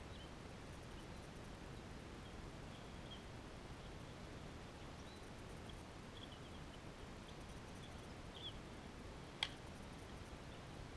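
A single sharp crack of a bat striking a ball, about nine and a half seconds in. Faint outdoor background hiss with scattered short bird chirps lies under it.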